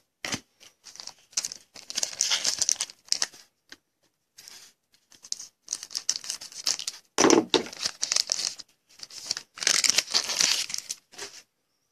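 Foil wrapper of a 2014 Panini Contenders football card pack crinkling as it is handled and torn open. The rustling comes in stop-start bursts, loudest in the second half.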